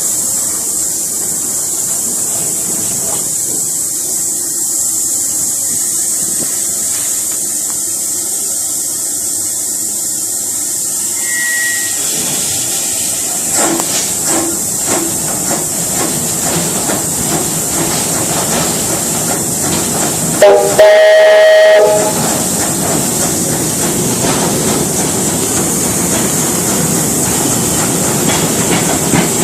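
Narrow-gauge steam train: a steady hiss, then one whistle blast about 21 s in, lasting about a second and a half. From about halfway through, wheel clicks over the rail joints grow more frequent as the train gets under way.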